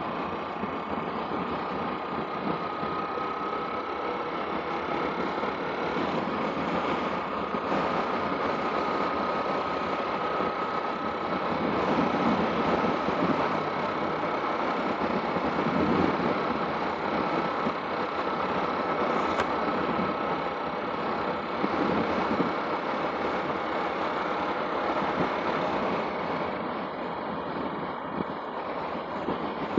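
Motorcycle running while riding in traffic: a steady mix of engine and road noise that grows a little louder about halfway through.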